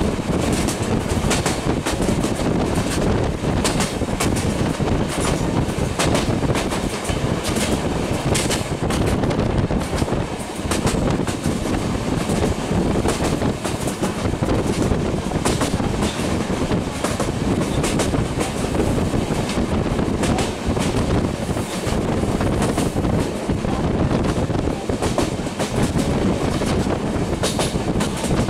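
Passenger train running at speed, heard from on board: a steady rumble and rush of air with the repeated clatter of the wheels over rail joints.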